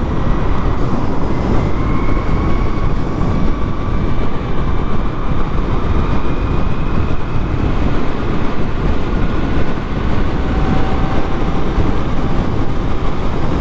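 Heavy wind noise on the microphone as a Zero FXE electric motorcycle accelerates to freeway speed, with a faint whine from its electric motor rising slowly in pitch.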